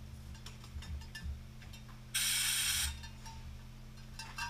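A short mechanical ratcheting buzz, under a second long, about two seconds in, with scattered light clicks and knocks around it.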